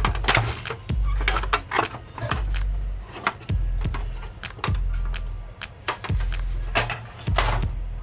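Clicks and knocks of the plastic outer housing of an Epson L130 inkjet printer as it is handled and lifted off the chassis, over background music with a low bass pulse about once a second.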